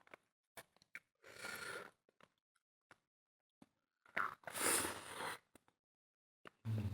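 Close-miked eating mouth sounds during a spicy pork mukbang: scattered small wet clicks of chewing, and two long breathy rushes of air through the mouth, one about a second in and a longer one past the middle.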